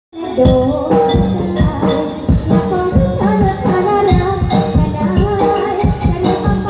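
Likay theatre music: an ensemble plays a melody over a steady beat of drums and percussion, starting abruptly at the very beginning.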